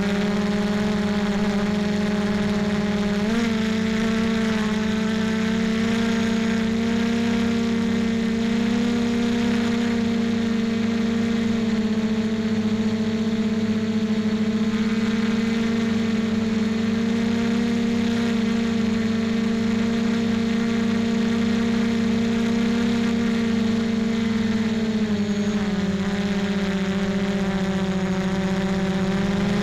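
Motor and propeller of a small radio-controlled aircraft running steadily, picked up by its onboard camera. The drone steps up slightly in pitch about three seconds in and drops a little near the end as the throttle changes.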